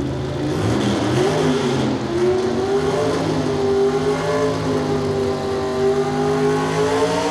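Super stock four-wheel-drive Chevrolet pulling truck's engine at full throttle, pulling the sled down the track. The revs climb over the first few seconds, then hold high and steady.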